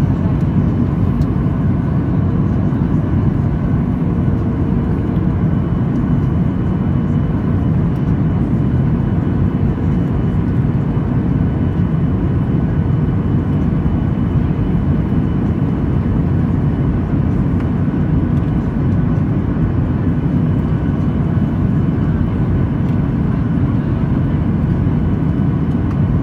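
Boeing 737-800's CFM56-7B turbofan engines and airflow in flight, heard from inside the cabin over the wing: a steady, even roar, mostly low rumble, with a few faint steady whines on top.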